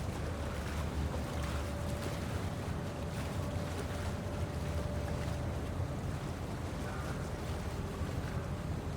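Large harbour ambience: a steady low rumble of ships and water, with wind and a faint steady hum that fades in and out.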